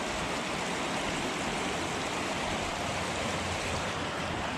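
Mountain river flowing: a steady rush of water.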